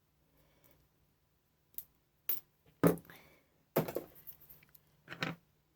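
Small scrap pieces being handled and set down: about five sharp clicks and knocks, spaced irregularly, the loudest near the middle.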